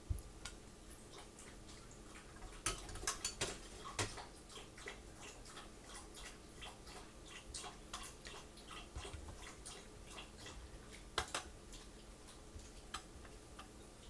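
Faint, irregular clicks and clinks of a metal jar lifter against glass canning jars and an aluminium pressure canner as hot jars are lifted out. The louder knocks come in a cluster about three seconds in and once more near eleven seconds.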